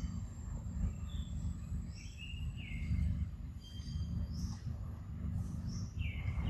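Forest birds calling: one bird repeats a short swooping whistle about every three seconds, with higher short chirps between, over a steady low rumble.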